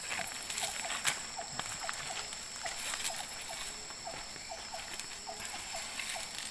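Outdoor riverside ambience: a short, falling animal call repeating about twice a second over a steady high insect drone, with a few sharp clicks and crunches from the stony riverbank as a fishing net is handled, the loudest about a second in.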